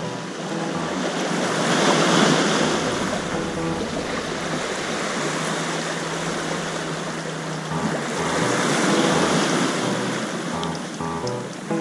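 Water sloshing and splashing at the surface close to the microphone, swelling twice, with wind buffeting the microphone. Faint background music plays underneath.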